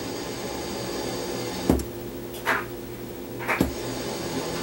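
Steady electrical hum from a powered-up mid-sixties Magnavox console stereo, with two sharp clicks and a few short hissing swishes.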